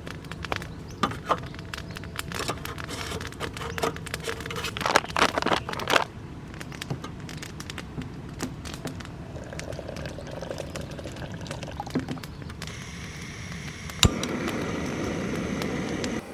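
Camp cookware being handled for coffee and breakfast: a quick run of clicks and clatters, then sparser knocks. Near the end a sharp knock is followed by a steady rushing noise.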